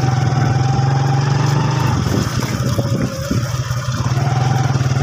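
Motorcycle engine running at low road speed over a muddy, rutted dirt road; its note eases off briefly a couple of seconds in, then steadies again.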